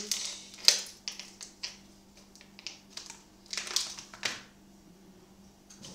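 Plastic ice cube tray being twisted, the frozen cubes cracking loose in a string of sharp, irregular cracks and clicks that die away in the last second or so.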